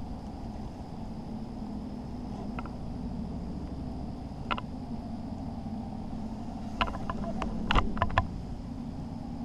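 Steady low hum of a distant running engine, with one sharp click about halfway through and a quick run of sharp clicks and knocks near the end, the loudest a single thump.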